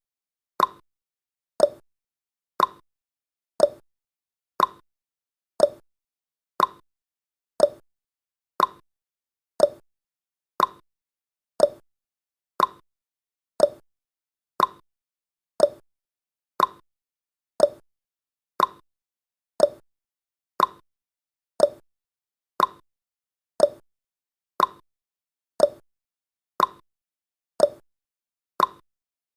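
Countdown timer tick sound effect: a short, sharp clock-like tick once every second, alternating slightly between a lower and a higher tick like a tick-tock.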